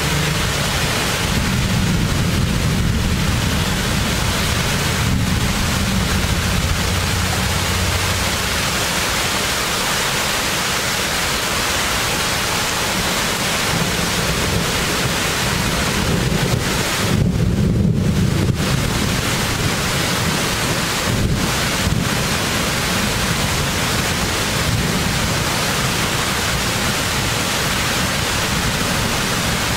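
Heavy rain falling steadily in a thunderstorm, with low rolling thunder in the first several seconds and again a little past the middle.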